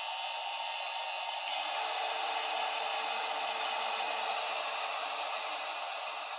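Heat gun running: a steady rush of blown air with a thin fan whine, shrinking heat-shrink tubing over soldered wire joints. The rush starts to ease off near the end.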